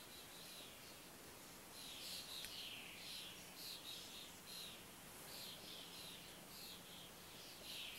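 Young common starlings giving harsh, repeated begging calls, demanding to be fed. The calls come several a second and grow thicker from about two seconds in.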